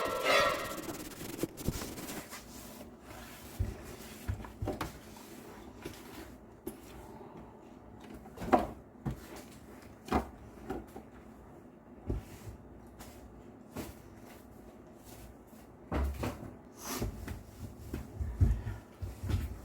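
Household cleaning handling noises: scattered light knocks, clicks and clatter of objects being moved and set down, with rubbing between, busier around the middle and near the end.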